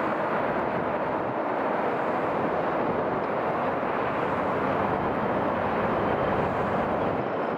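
Airbus A321 jet engines at takeoff thrust as the airliner lifts off and climbs: a steady, even rumble of jet noise.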